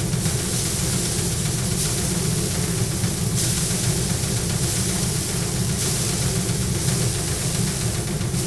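Paddy thresher running: the spinning spiked drum gives a steady mechanical hum, and the rice bundles held against it add a hissing rush of straw and grain that swells and eases every second or so.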